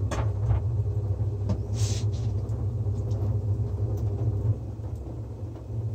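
A steady low rumble that eases off after about four and a half seconds, with a few light clicks and a brief rustle about two seconds in.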